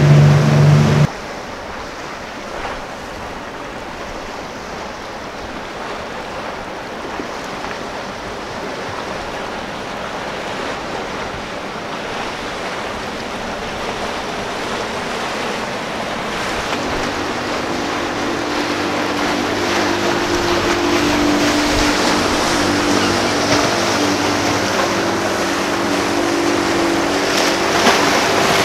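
Boats running through an ocean inlet: the hull wash and rushing water of the wakes with wind on the microphone. A boat's engine sounds for the first second and cuts off suddenly, and from a little past halfway another boat's engines come in steadily and grow louder toward the end.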